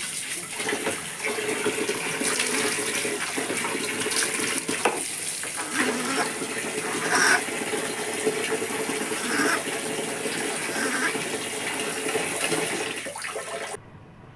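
Water running and splashing steadily as a baby monkey is washed by hand, cutting off abruptly near the end.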